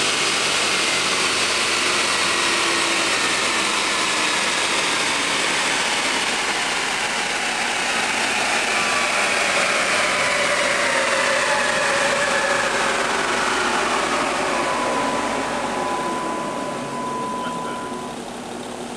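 A 2010 Dodge Challenger SRT8 winding down on a chassis dyno, heard from inside the cabin: a loud drivetrain and roller noise whose whine falls slowly in pitch as it coasts down after a full-throttle pull. It quiets near the end, with a steady high tone for a few seconds just before.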